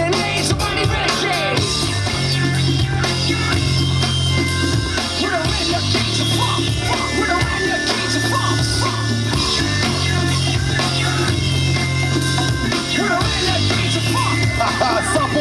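Loud music with singing over a heavy bass line whose notes are held for a second or two at a time.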